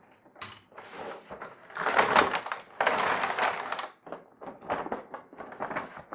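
A cardboard toy box and its clear plastic blister tray being handled and pulled open: the plastic crinkles and crackles, loudest in two longer stretches about two and three seconds in, with scattered clicks and knocks between.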